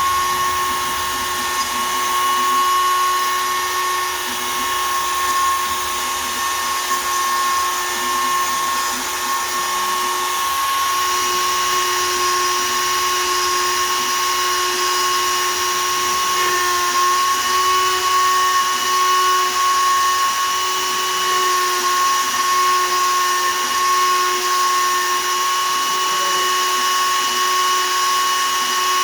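Shapeoko 3 XL CNC router's spindle running steadily at about 20,000 rpm, a constant high whine, as a 1/8 in two-flute downcut spiral bit cuts poplar.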